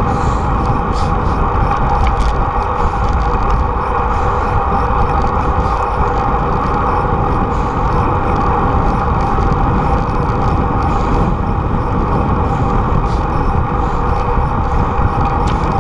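Steady rush of wind buffeting the microphone of a camera on a moving bicycle, over a continuous road hum from tyres and nearby freeway traffic.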